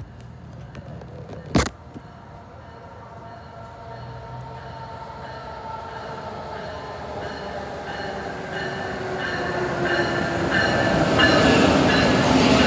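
Amtrak Siemens ACS-64 electric locomotive and its passenger train approaching and running in alongside the platform, growing steadily louder, with a whine that falls in pitch as it nears. A single sharp knock about a second and a half in.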